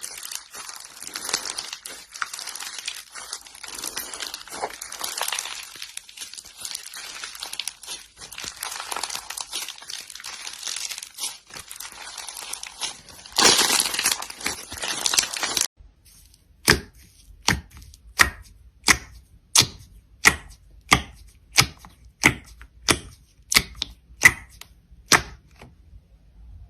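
Crunchy ASMR handling sounds: dense crackling and crinkling for about fifteen seconds, loudest near the end of that stretch. Then it changes abruptly to about fifteen crisp, evenly spaced cuts or snaps, about one and a half a second.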